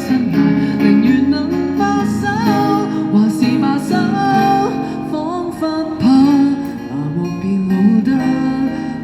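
Cantonese pop ballad sung with strummed acoustic guitar accompaniment.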